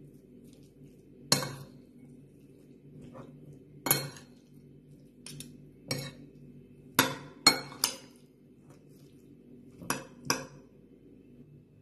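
Metal spoon and fork clinking against a salad bowl while tossing salad: about nine sharp clinks at uneven intervals, several coming in quick pairs.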